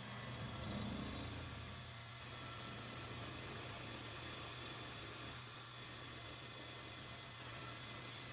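A motor-driven shop machine running steadily with a low, constant hum, swelling slightly about a second in.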